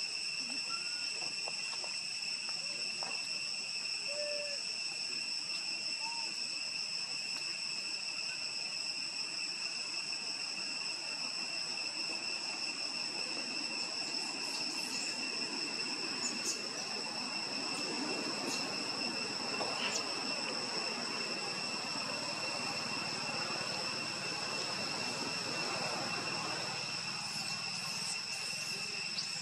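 Steady, unbroken insect chorus ringing at several high pitches at once. A few faint short chirps sound in the first few seconds, and a soft rustling hiss swells through the middle and later part.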